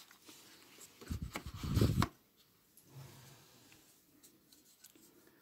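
Hands pulling a phone's plastic wall charger out of its cardboard box insert: a second or so of rubbing and scraping about a second in, then only faint handling.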